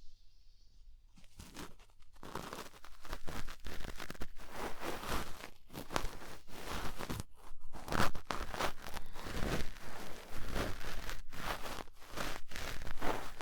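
Cotton swab rubbing and scratching in the ear of a 3Dio binaural microphone, close ear-cleaning sounds. After about a second of near silence, a dense run of scratchy strokes sets in and continues.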